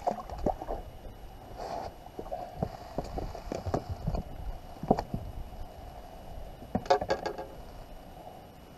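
Scattered knocks, taps and scrapes on a bass boat's deck as a caught bass is landed and handled, with a sharp knock about five seconds in and a quick cluster of clicks about seven seconds in.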